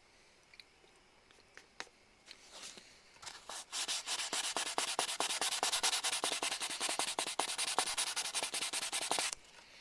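Fine-grit (600–800) sandpaper, lightly wetted, rubbed rapidly back and forth over the painted plastic hull of a model kit to smooth a run in the paint, many quick strokes a second. It starts about four seconds in after a few faint ticks and stops suddenly near the end.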